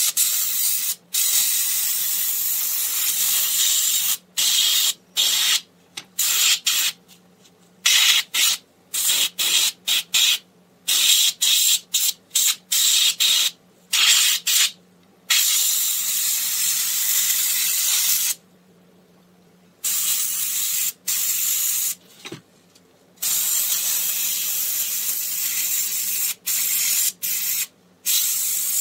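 Siphon-feed airbrush spraying black paint, hissing in bursts as the trigger is pressed and released: longer sprays at first, a run of short, quick bursts in the middle, then longer sprays again.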